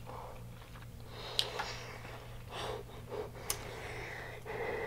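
Mouth sounds of a person eating deep-fried seafood: chewing and breathing, with two sharp clicks about two seconds apart.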